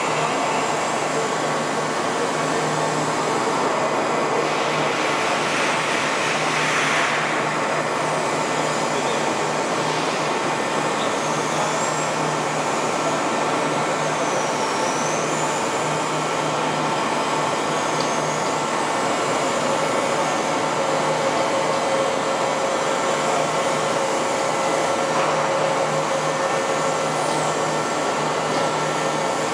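Steady whirring drone of running heavy machine-tool machinery, with a low hum and several faint steady whining tones, and a faint high warbling whine midway.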